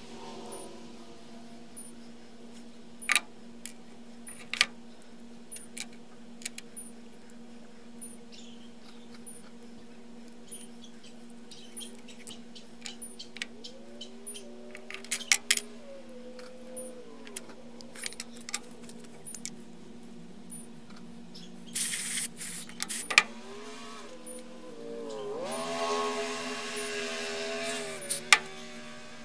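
Clicks and taps of a Leatherman multitool's small metal parts being handled and taken apart, over a steady hum. Twice a pitched whirring rises, holds and then falls away.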